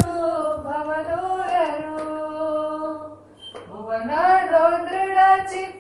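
A single high voice singing a Kannada devotional song, holding long notes that bend slowly between pitches. It pauses briefly about three seconds in, then goes on. There is a short click at the very start.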